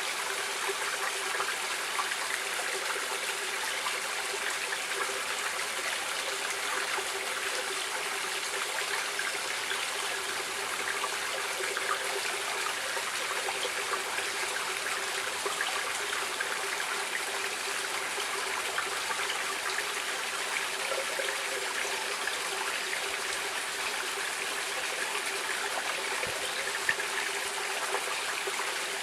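Stream water flowing steadily, an even rush with fine trickling and splashing throughout.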